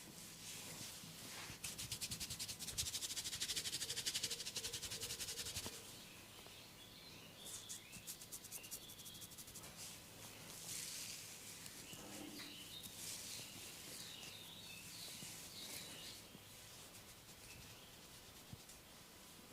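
Hands massaging a person's head and face, with fingers rubbing and scratching on skin and hair. About a second and a half in comes a fast, even run of scratching strokes lasting about four seconds. Softer, intermittent rubbing follows.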